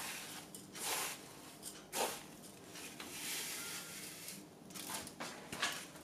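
Desiccated coconut being scraped off a wooden board into an aluminium pot of hot sugar syrup: faint rustling pours with a light knock of wood against the pot about two seconds in.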